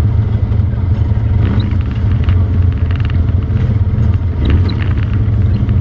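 ATV engine running steadily at low revs.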